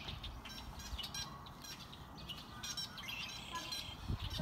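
Small birds chirping, in quick bouts of short, high notes several times a second.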